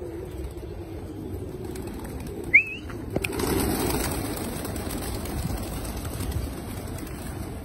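A flock of pigeons taking off together: a burst of wing flapping starting about three seconds in, loudest for a second or so and then thinning out as the birds fly up. Just before it comes a short rising whistle and a sharp snap.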